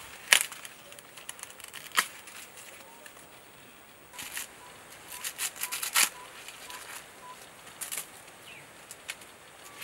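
Green maize husk and leaves crackling and tearing as an ear of maize is gripped and peeled on the stalk. The crackles come as separate sharp snaps, with a dense run of them about four to six seconds in.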